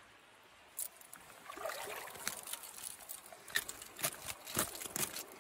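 Small splashes and drips of water from a trout in a rubber landing net dipped into shallow river water: a run of short irregular splashes starting about a second in.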